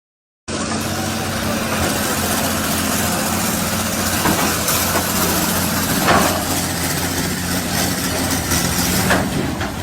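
A heavy engine running steadily under a broad noisy rush, starting abruptly about half a second in, with a couple of brief sharper knocks later on.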